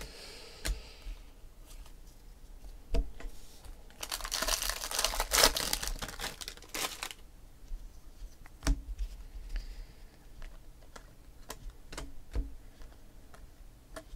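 A stack of baseball trading cards being flipped through by hand: scattered sharp clicks and taps as cards are slid off the pile, with a louder stretch of crinkling, rustling noise from about four to seven seconds in.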